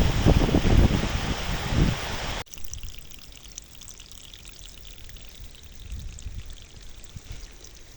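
Wind buffeting the microphone with gusty rumbling, cut off suddenly about two and a half seconds in, then a quieter steady trickle of running water.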